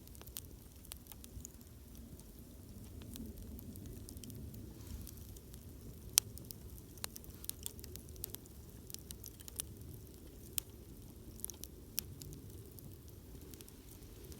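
Wood campfire burning, crackling with irregular sharp pops over a low steady rumble; the loudest pop comes about six seconds in.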